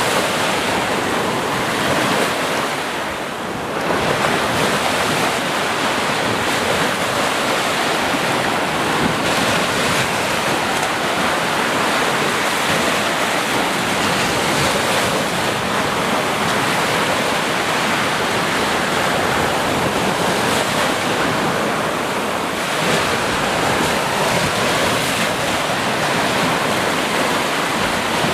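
Ocean surf: a continuous wash of waves breaking and running up a shore, easing briefly about three seconds in.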